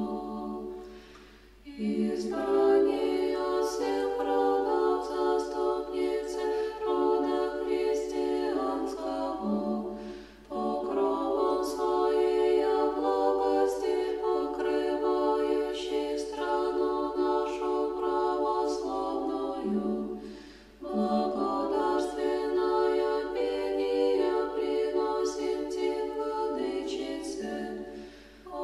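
Unaccompanied Orthodox church choir singing liturgical chant in several voices. It sings in long phrases of about nine seconds, each followed by a brief break.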